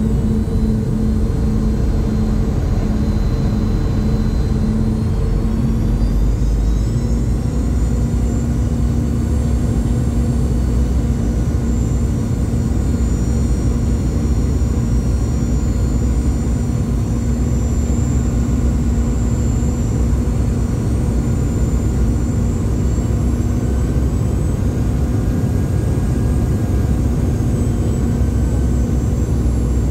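Cabin sound of a Boeing 717's Rolls-Royce BR715 turbofan engines: a steady low rumble with a high engine whine. About five to seven seconds in, the whine rises in pitch as the engines speed up, and it then holds steady.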